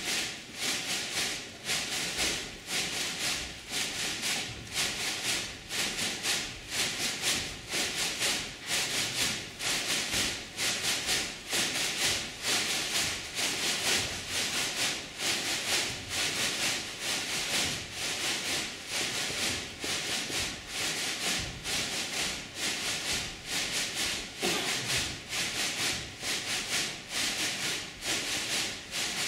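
Rhythmic swishing, about two to three strokes a second, over a faint steady hum.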